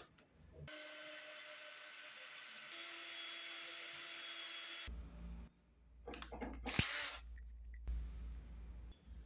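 Electric drill motor running at a steady speed, stepping up slightly in pitch partway through, then stopping abruptly. It is followed by a low rumble with loud scraping bursts and a sharp knock.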